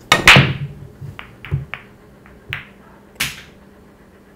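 Pool break shot: a loud clatter as the cue ball smashes into the racked billiard balls, followed by about six separate sharp clicks over the next three seconds as the scattered balls knock into one another.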